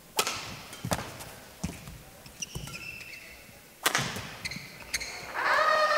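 Badminton rally: sharp strikes of rackets on the shuttlecock, about one a second, with short shoe squeaks on the court floor between them. About five seconds in, the crowd in the hall starts up loudly as the point ends.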